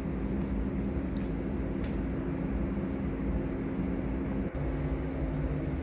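Steady low mechanical hum with a couple of held tones; after a brief dip about four and a half seconds in, the tones shift slightly.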